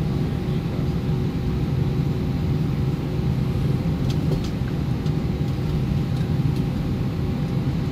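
Airbus A320 passenger-cabin noise while taxiing: the jet engines and cabin air give a steady low rumble with a faint steady hum in it. A few faint ticks come about halfway through.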